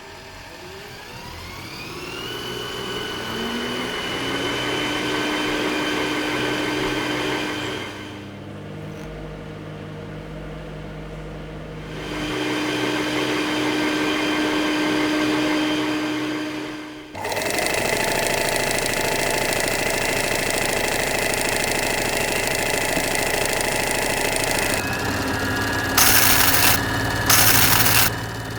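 Small household electric motors standing in as robot machinery: a whirring whine that rises in pitch over the first two seconds and then runs steadily, drops back to a lower hum, returns, then gives way to a denser steady mechanical drone. Two short bursts of hiss come near the end.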